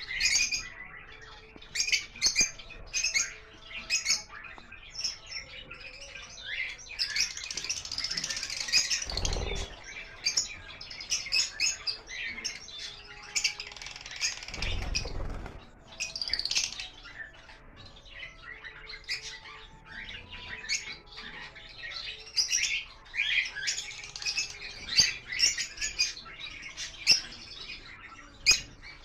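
A flock of lovebirds chirping and squawking continuously in a shrill, overlapping chatter. Two brief low rumbles come in, about a third and half of the way through.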